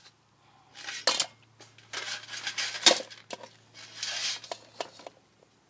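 Cooked crab shells clattering and scraping against a perforated metal steamer basket and a plastic bowl as they are tipped out, in a few rattling bursts with sharp clicks between.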